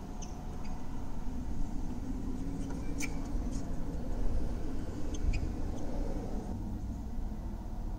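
Steady low rumble heard from inside a car's cabin, with a few faint, sharp clicks of tennis balls being struck in a singles rally on the court beyond, the clearest about three seconds in.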